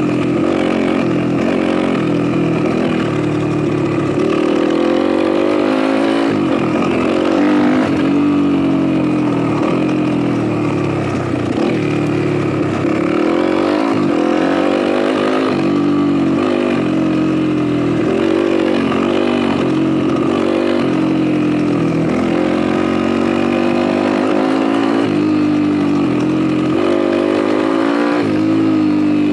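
YCF Bigy 190 pit bike's single-cylinder four-stroke engine running under way on a ride, its revs rising and falling over and over as the throttle is worked.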